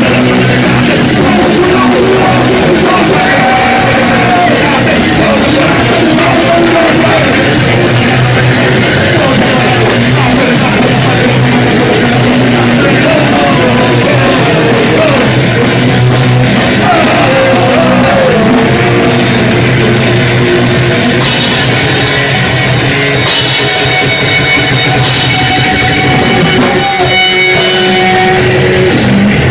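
Punk rock band playing live and loud: drum kit and guitars driving, with sung vocals over the top.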